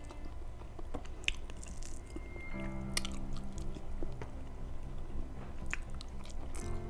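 Close-up chewing and biting as meat of kare-kare is eaten off the bone by hand, with scattered sharp clicks and crunches. Soft background music with held notes plays under it.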